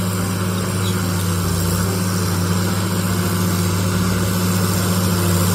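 Crawler bulldozer's diesel engine running steadily as its blade pushes a mound of earth, a constant low drone.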